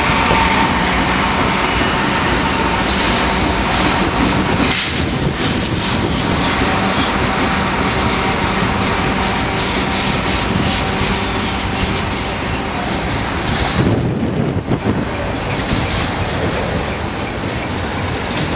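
Freight train rolling past close by on a downgrade: steady noise of steel wheels on the rails as the cars go by.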